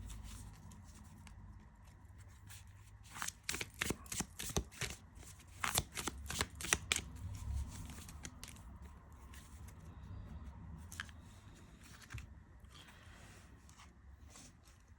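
Tarot cards being shuffled and handled: a run of quick, crisp card clicks from about three to seven seconds in, then a few softer rustles and taps.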